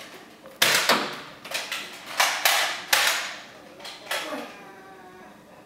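Toy Nerf foam-dart blaster firing, a quick run of sharp pops and clacks, about five or six in the first four seconds.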